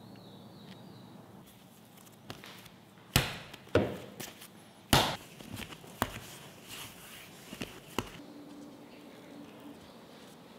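Soft bread dough worked by hand on a wooden board: several sharp slaps and thumps against the board about three to five seconds in, then a few lighter knocks as the dough is rounded into a ball.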